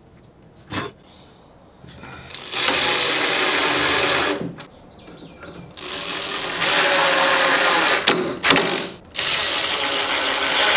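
Cordless drill/driver driving screws into a cabinet door hinge, three runs of a couple of seconds each, the first starting about two and a half seconds in.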